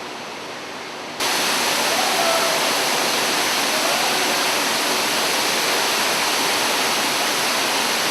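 Steady rush of an artificial indoor waterfall, jumping suddenly louder and brighter about a second in, then holding steady.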